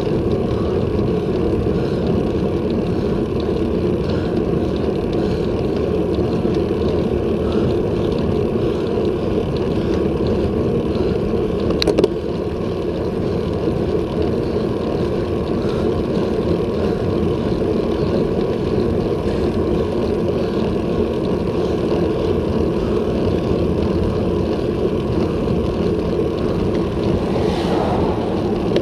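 Steady rushing wind and road noise on a bicycle-mounted action camera riding at about 20 km/h, with one sharp click about twelve seconds in. Near the end a car passes close by, its sound swelling and falling away.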